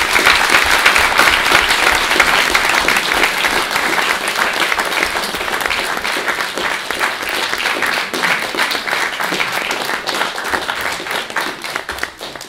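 Audience applauding: many hands clapping in a dense, steady patter that slowly thins and dies away near the end.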